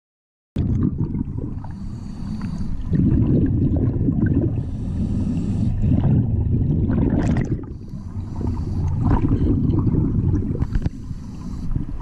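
Scuba regulator breathing underwater, starting abruptly about half a second in. A faint hiss of inhalation comes four times, about every three seconds, between loud rumbling gurgles of exhaled bubbles.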